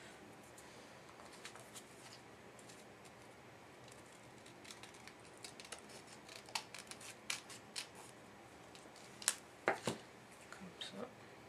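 Small craft scissors snipping paper: a run of quiet, irregular snips that grows busier midway, with a few louder clicks near the end.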